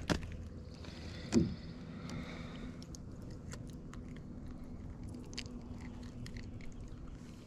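Close handling noise as a freshly caught bluegill and a light fishing rod are handled in a small jon boat: two knocks, the louder one about a second and a half in, then soft scraping and small ticks.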